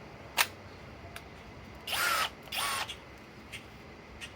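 A single click, then a Master Force brushless hammer drill driver run twice with no load, in two short whirring bursts of about half a second each.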